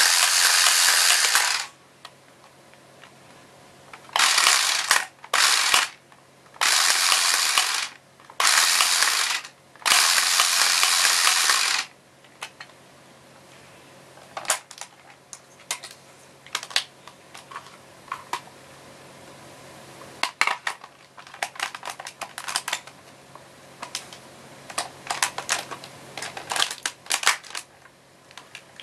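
The toy D-Revolver's battery motor whirs its gears in a string of loud bursts, each from half a second to two seconds long, until about halfway through. After that come scattered plastic clicks and snaps as an SP License is handled and fitted onto the gun.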